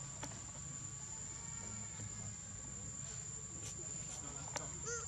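Steady, high-pitched drone of insects in the forest, with a few faint clicks and a brief short call near the end.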